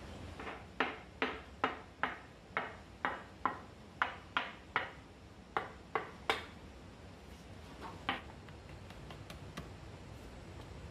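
Mason's trowel tapping a ceramic tile to bed it into fresh mortar on the side of a brick stove: about a dozen sharp taps, roughly two a second, then a pause and one more tap.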